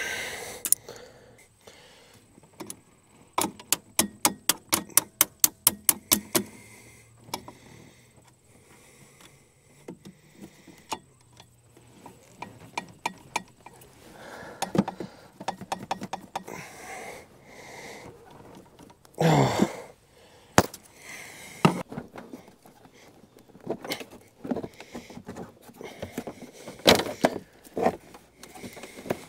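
Hand tools working at a truck's fuel line fitting: a run of about a dozen quick clicks at roughly four a second, then scattered knocks and scrapes of metal, with one longer, louder scrape about two-thirds of the way through.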